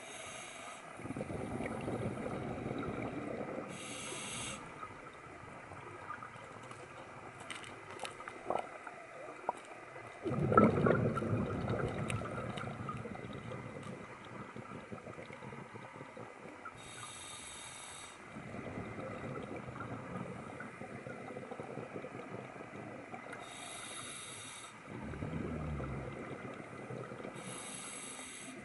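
Scuba diver breathing through a regulator underwater: short hissing inhalations, each followed by a longer burst of bubbling exhaled air, several breaths in all. The loudest exhale comes about ten seconds in.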